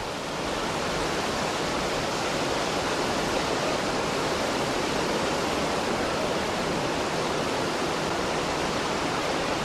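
Sea surf washing onto a beach: a steady rush of breaking waves that fades in at the start.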